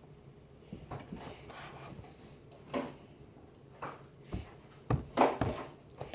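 Handling noise: a few short knocks and rubs, with a quick cluster of knocks about five seconds in, the loudest of them.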